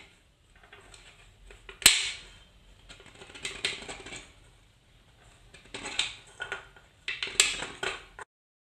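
Aluminium drink can turned by hand on a granite countertop against a fixed metal scribing point, scoring a marking line around it: a series of scrapes and clicks. The loudest is a sharp click about two seconds in, and clusters of clicks follow around three and a half, six and seven to eight seconds in.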